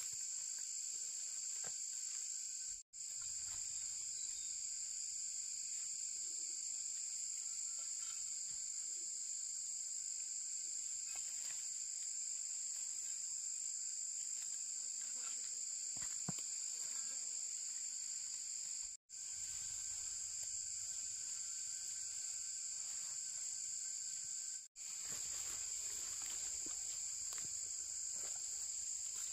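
Steady chorus of insects, a continuous high buzz, cut off to silence three times for an instant.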